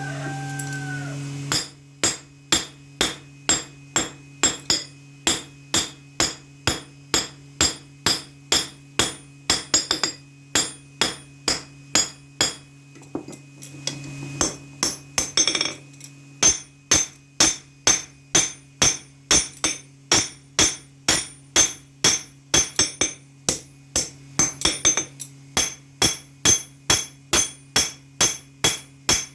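Hammer blows on steel at an anvil, struck at a steady pace of about two a second with a bright metallic ring, typical of forging a knife blade by hand. A steady low hum runs underneath.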